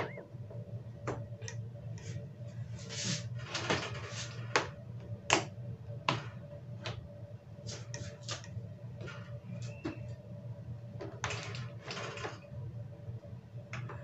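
Scattered plastic clicks and knocks as a yellow Moulinex two-slot toaster is plugged into a wall socket and its controls are worked, over a steady low hum.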